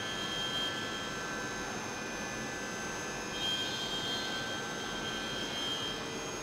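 CNC milling machine running: a steady mechanical hum and hiss with constant high tones, and a high whine that comes in briefly at the start and again for a couple of seconds past the middle.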